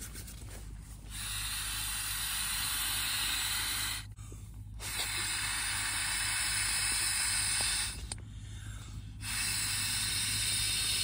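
A steady hiss in three bursts of about three seconds each, starting and stopping abruptly with short gaps between them.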